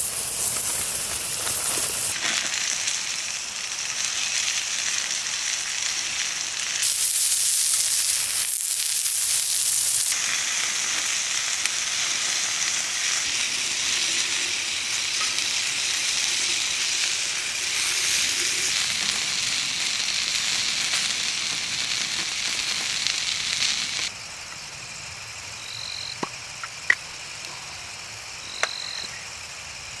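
Pork sizzling on a grill over a wood campfire: a steady hiss that changes level abruptly at a few cuts. About three-quarters of the way through it gives way to a quieter stretch with a few sharp snaps and a short high call repeating every few seconds.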